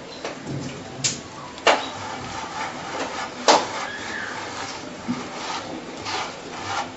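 Hands rubbing once-steamed berkoukes semolina pellets with oil to separate them: a repeated dry, gritty rasping, with a few sharp clicks against the dish.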